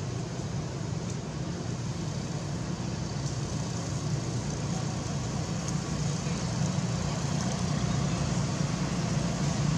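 Steady low rumble with a hiss over it, growing slightly louder near the end.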